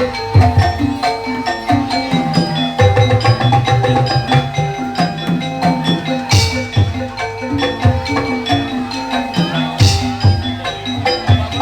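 Kuda lumping accompaniment ensemble playing: quick struck metallophone notes over a busy hand-drum pattern, with two louder crashes about six and ten seconds in.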